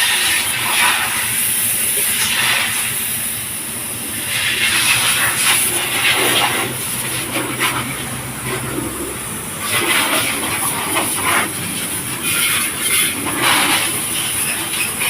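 Hissing spray of water from a car-wash hose, swelling and fading in repeated bursts, with a low steady hum for a few seconds in the middle.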